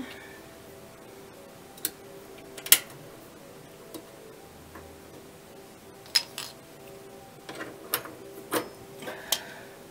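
Scattered small clicks and light metal taps as spade wire connectors are pushed back onto a terminal on a Maytag dryer's blower housing, the loudest a sharp click a little under three seconds in. A faint steady hum runs underneath.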